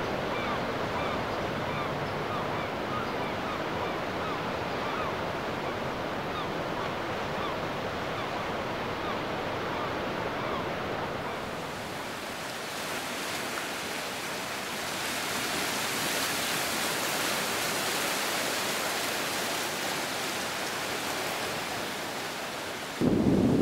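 Sea surf washing onto a sandy beach: a steady rushing that turns brighter and hissier from about halfway. Just before the end a sudden louder, deeper rush cuts in.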